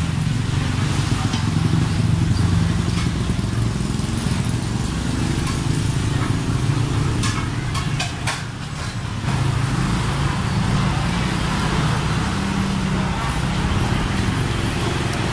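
A nearby engine running steadily under general street noise, with a few sharp clicks about halfway through.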